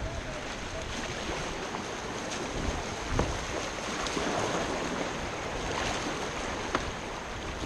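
Rushing whitewater of a river rapid, a steady hiss, with a few faint knocks scattered through it.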